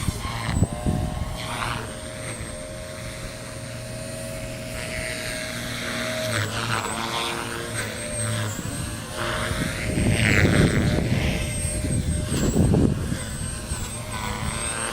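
Electric Beam E4 RC helicopter in flight, its motor and rotor whine shifting up and down in pitch as it is flown. Gusts of strong wind buffet the microphone, swelling about two-thirds of the way in.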